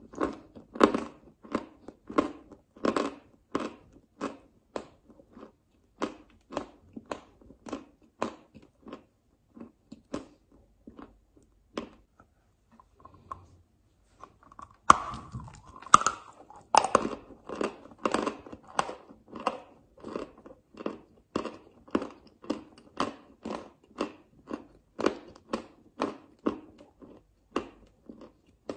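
Crunching of a person biting and chewing a block of chalk, steady chews at just under two a second. The chewing lulls about ten seconds in, then a louder bite about fifteen seconds in starts a fresh run of crunching.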